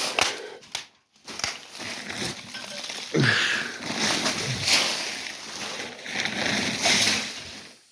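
Rustling, scraping and a series of sharp knocks and clicks, as of junk being handled and moved about.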